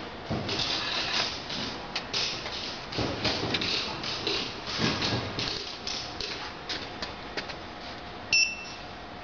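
Sheet of card stock being slid and tapped into place against the metal guides of a business card cutter: scattered light knocks, clicks and brief scrapes. Near the end, a short electronic beep as a key on the cutter's control keypad is pressed.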